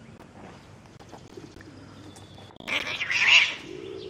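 A cat's loud, harsh hiss lasting under a second, near the end. Pigeons coo in the background.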